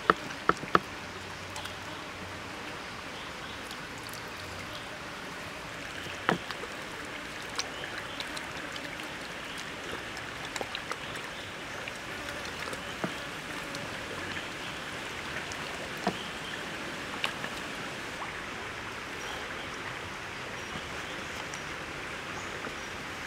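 Hands rubbing and pressing a whole raw chicken on a wooden chopping board, with occasional sharp slaps or taps, over a steady outdoor hiss.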